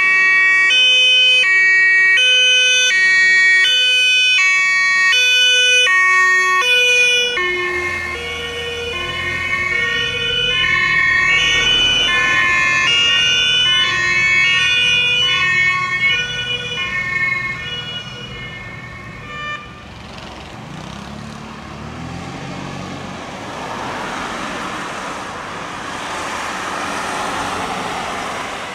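German two-tone emergency-vehicle siren (Martinshorn) sounding its alternating high-low notes. About seven seconds in, the siren's pitch drops slightly, with a heavy vehicle's engine running underneath. The siren cuts off about two-thirds of the way through, leaving engine and tyre noise from the vehicle driving past.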